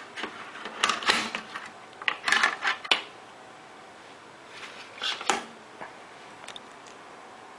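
Close handling noise: clusters of sharp clicks and rustles, a few bunches in the first three seconds and another about five seconds in.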